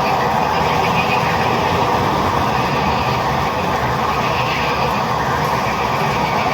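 Dense chorus of many frogs calling at once, a continuous, even din.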